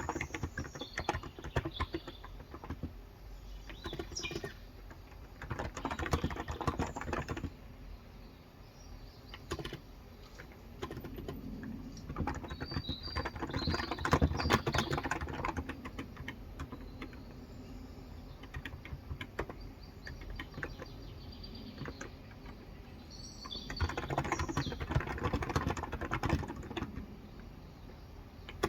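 Typing on a Cox Endeavour electro-capacitive (Topre-style) keyboard with 35 g switches: bursts of rapid keystrokes with short pauses between them. Birds chirp faintly in the background.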